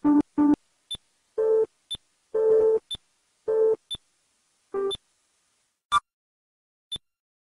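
Synthesized electronic beeps: a short high tick about once a second marks each month of the timeline, and a series of lower bleeps of differing pitch, some lasting about half a second, each marks a nuclear test explosion. The lower bleeps come through the first five seconds; after that only the ticks and one short higher blip remain.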